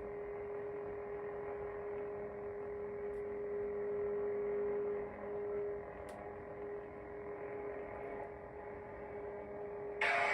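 Saberforge LED lightsaber's sound board playing its steady electronic idle hum while the blade is lit, with a short, louder, hissing burst near the end.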